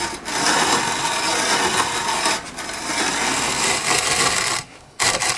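Coffee grinder grinding roasted coffee beans: a dense, gritty grinding that stops about four and a half seconds in, with one short burst just after.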